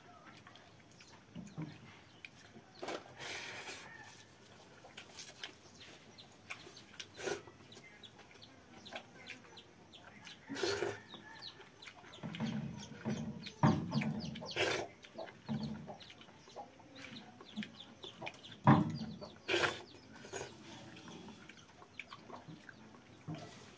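Hand-eating sounds: fingers squishing and mixing fermented water rice in a steel bowl and picking curry off a steel plate, with sharp clicks, smacks and chewing scattered through. Hens cluck off and on in the background, most around the middle.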